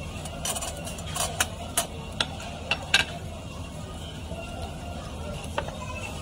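Eating utensils clicking and tapping against dishware at a table, a quick run of sharp clicks in the first three seconds and one more near the end, over a steady low hum.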